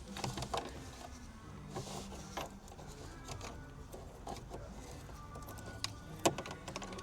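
Wiring connectors on the auxiliary switches being pushed into place behind the dash trim, heard as a few scattered plastic clicks and taps, with a faint steady low hum behind.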